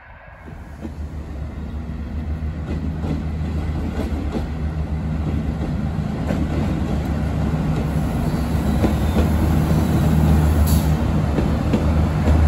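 SNCF X 72500 diesel railcar passing close by, its engine drone growing steadily louder as it approaches, with scattered clicks from the wheels over rail joints and points.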